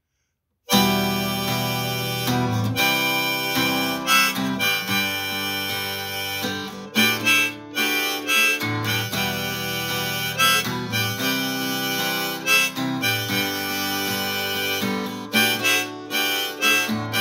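Instrumental intro of an acoustic song cover: strummed acoustic guitar with a harmonica playing the melody, starting just under a second in.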